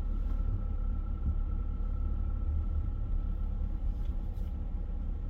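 Low, steady rumble of a Honda Element's four-cylinder engine and drivetrain heard from inside the cabin while driving slowly and turning, with a faint steady high tone over it.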